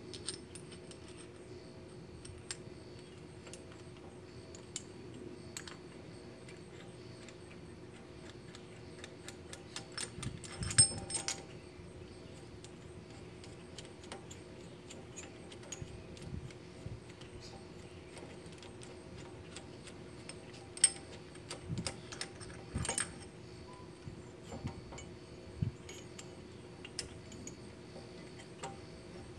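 Metal parts of a disc brake caliper piston tool clinking and clicking against each other and the brake caliper as they are fitted by hand. There are scattered light clicks, with louder clatters about eleven seconds in and again a little past twenty seconds, over a faint steady hum.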